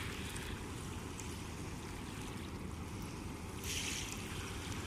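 Wind rushing on the microphone over choppy river water lapping at the bank, with a steady low rumble and a brief hissing splash or gust about three and a half seconds in.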